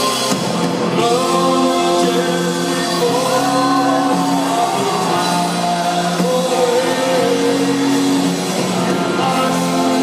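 Live rock music with sung vocals, held notes gliding over a dense, steady band sound.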